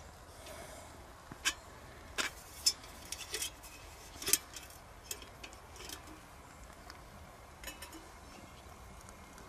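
Small wood fire of fatwood shavings and twigs, just lit with a fire steel, crackling faintly: about a dozen sharp snaps at irregular intervals.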